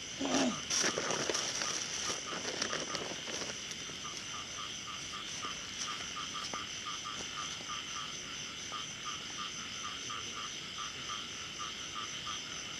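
Frogs croaking in a regular run of short calls, about three or four a second, over a steady high drone of night insects.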